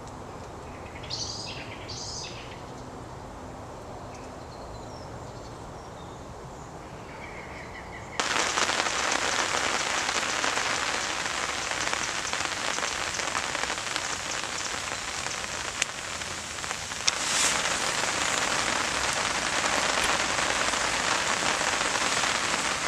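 Quiet woodland with a couple of short bird chirps about a second in, then, about 8 seconds in, the steady hiss of rain starts suddenly and carries on.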